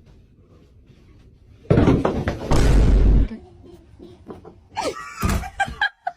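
A door slamming hard: two loud bangs in quick succession about two seconds in, lasting about a second and a half together.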